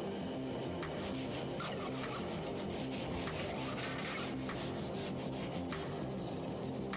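Repeated abrasive rubbing strokes on a garage door's surface, of the kind made by hand sanding, over background music.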